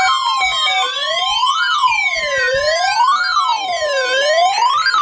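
Emergency alert tone opening a severe thunderstorm warning broadcast: a loud, siren-like wail sweeping up and down in pitch about once every one and a half seconds, with a slower tone gliding downward beneath it.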